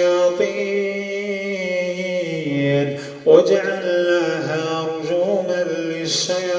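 Male voice chanting Quranic verses in a slow melodic recitation, holding long drawn-out vowels. The voice briefly drops about three seconds in, then comes back in sharply on a new phrase.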